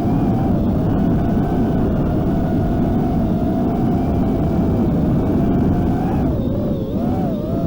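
FPV racing quadcopter's brushless motors whining under heavy wind and propeller-wash noise; the whine holds a steady pitch, then wavers up and down about six seconds in as the throttle changes.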